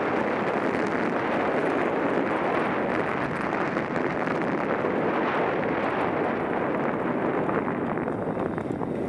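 Steady rush of wind buffeting a helmet-mounted camera's microphone while riding a mountain bike downhill on dry singletrack. A few faint clicks and knocks come from the bike over bumps near the end.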